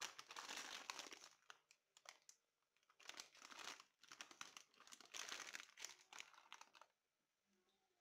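Plastic bag of dried lentils crinkling as it is picked up and handled, in three bouts of rustling, the last the longest.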